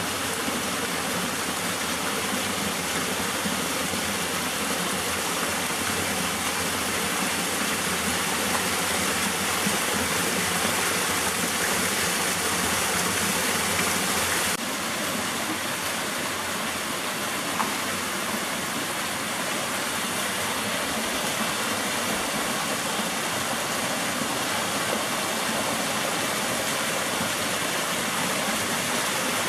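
Small waterfall of a mountain creek cascading down a rock gully and splashing into a pool: a steady rush of falling water, slightly quieter from about halfway.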